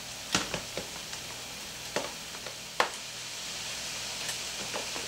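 A utensil clinking sharply against a bowl a few times while an egg is mixed into mashed potatoes. Underneath is a steady sizzle from a skillet of ground beef and vegetables cooking on the stove.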